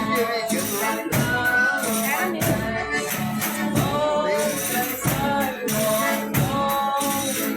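Folia de Reis (Companhia de Reis) folk music: voices singing a sung verse, with a tambourine (pandeiro) jingling in a steady rhythm.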